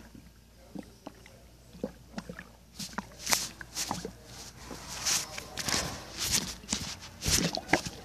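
Kittens fighting: scuffling with short rasping bursts, sparse at first and coming thick and fast from about three seconds in.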